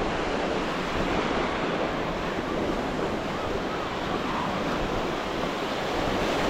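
Surf washing onto a sandy beach in a steady wash of noise, with wind buffeting the microphone.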